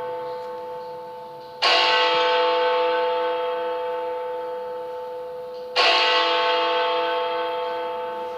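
Big Ben, the Great Bell at Westminster, striking the hour as it counts out twelve: two strokes about four seconds apart, each ringing on and slowly fading. The previous stroke is still sounding at the start.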